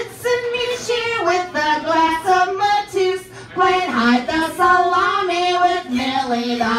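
Women singing a verse of a bawdy comic folk song, moving from one held note to the next, with lower notes about four seconds in and near the end.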